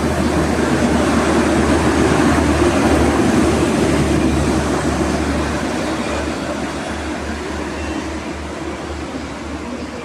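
Passing express train on the rails, a steady rumble of wheels and carriages that slowly fades as the train draws away.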